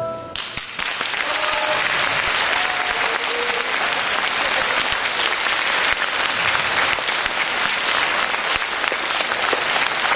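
Concert audience applauding steadily after a song ends, the band's last notes cutting off just as the clapping begins.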